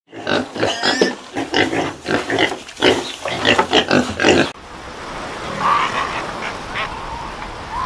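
Piglets suckling at a sow: a busy, rapid string of short pig grunts, several a second. About four and a half seconds in, this gives way abruptly to a fur seal colony, a steady background noise with a few scattered seal calls.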